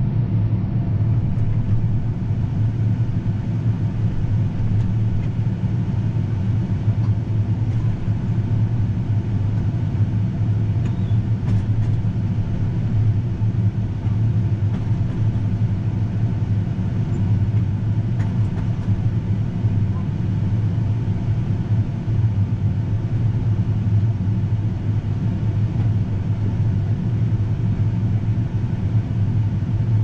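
John Deere S790 combine's engine running steadily, heard from inside the cab as a constant low hum.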